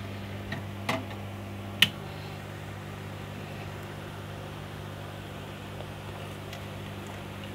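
Steady low electrical hum with a fan-like hiss from powered bench equipment. Three light clicks in the first two seconds, the last the sharpest.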